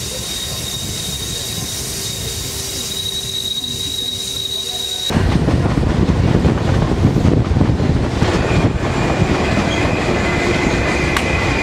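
Alaska Railroad Denali Star passenger train running, heard from aboard, with a steady high-pitched squeal of the wheels on a curve. About five seconds in the sound cuts to louder rumbling rail noise as the train rolls into a station, and a fainter steady squeal returns near the end.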